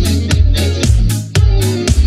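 Background music with a steady beat, about two beats a second, over a deep bass line.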